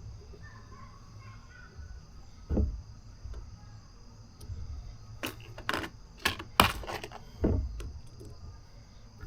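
Hands working on a scooter wheel: a scatter of sharp clicks and knocks, the loudest about two and a half seconds in and a cluster between five and eight seconds in.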